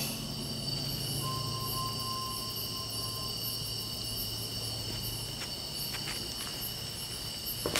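Steady high-pitched chirring of crickets, several unbroken shrill tones held together, over a faint low hum.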